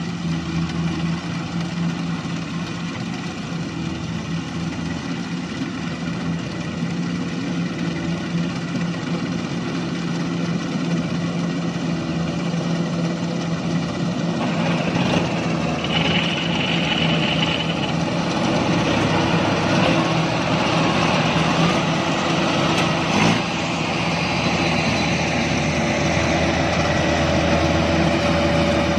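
Kubota combine harvester's diesel engine running steadily. The sound gets louder and rougher from about halfway through, with one short knock near the end.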